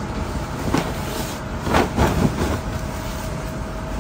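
Fabric of a quilted comforter rustling and swishing as it is unfolded and shaken out, loudest about two seconds in, over a steady background hum.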